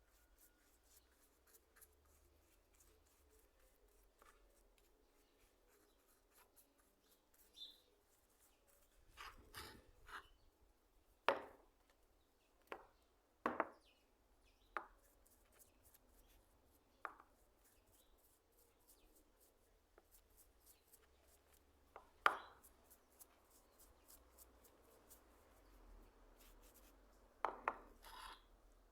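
Quiet handling of tools or parts: about a dozen scattered light knocks and clicks, the loudest a third of the way in, a little past two thirds, and a short cluster near the end.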